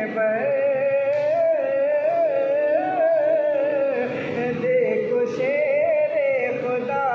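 A man singing a devotional naat, drawing out a long melodic line that slowly bends up and down with ornamented turns.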